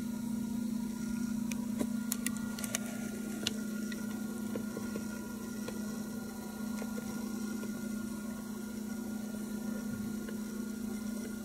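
Steady low hum, with a few faint clicks a couple of seconds in.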